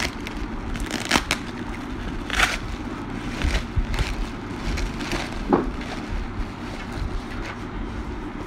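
Plastic bubble wrap being handled and pulled off a cardboard box: irregular crinkling and rustling with several sharper crackles, over a steady low rumble.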